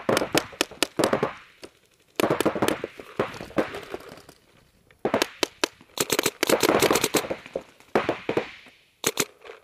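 Paintball markers firing in rapid volleys of many sharp shots a second, with two short pauses between the volleys.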